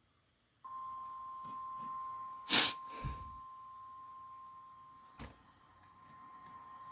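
NOAA Weather Radio's 1050 Hz warning alarm tone: a steady, single-pitched tone that starts abruptly after a short silence and holds, marking an Emergency Alert System warning broadcast. A loud brief burst of noise breaks in about two and a half seconds in, with a fainter one just after and a sharp click about five seconds in.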